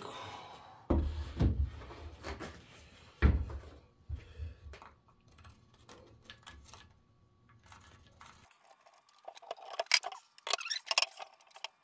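Workshop handling noise: a wooden board knocked down twice against the workbench, with quieter bumps after. Near the end comes a quick run of light metal clinks and clicks, like loose hardware being handled.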